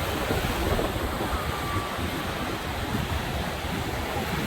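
Floodwater of the Rabacca Dry River rushing through in spate: a steady churning water noise, with wind buffeting the microphone.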